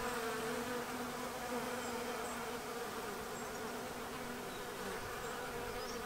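Honeybee colony buzzing in a steady hum around its small nuc box hive, a strong colony packed into the box.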